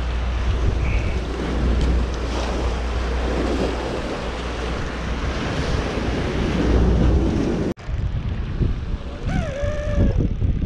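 Wind rumbling on the microphone over surf washing against the rocks of a granite jetty. There is an abrupt break about eight seconds in, after which the wash of breaking waves goes on.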